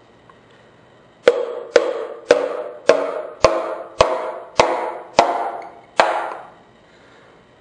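Wooden hammer handle tapping a piston down through a ring compressor into a cylinder bore of a Ford 200 inline-six block. Nine sharp knocks come about half a second apart, each with a short ringing tail, as the ringed piston is driven into the bore.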